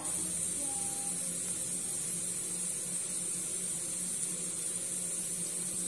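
Chopped onions frying in oil in a pan: a steady, even sizzling hiss, with a faint steady hum underneath.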